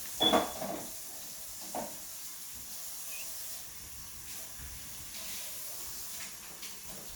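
Sticky slime being squished and pulled by hand, with a louder wet squelch just after the start and a smaller one a second or so later, over a steady hiss.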